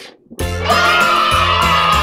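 Background music: it breaks off almost to silence for a moment at the start, then a track with held notes over a bass line comes in.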